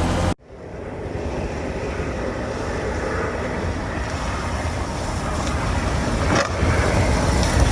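A sudden cut about a third of a second in, then a rushing noise over a low rumble that slowly builds: snow-clearing machinery at work.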